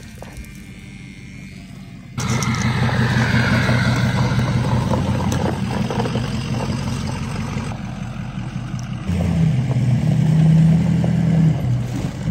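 Diesel engine of a Ford Super Duty pickup running hard under load as it drags a flipped car upright on a tow strap. It starts suddenly about two seconds in, and from about nine seconds the engine note climbs and holds at higher revs.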